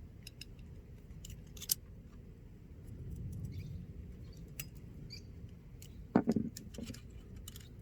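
Light clicks, taps and rustling of small valve parts being handled, with a couple of louder knocks about six seconds in.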